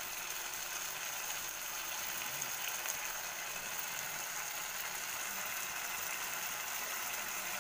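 Onion, tomato and curd masala sizzling in a frying pan with a steady fine crackle.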